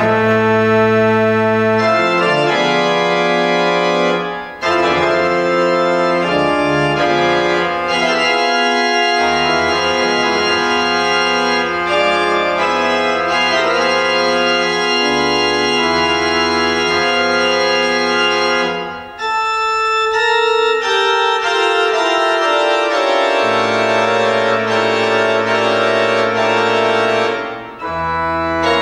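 Pipe organ playing slow, sustained chords over deep bass notes, in long phrases with three short breaks between them.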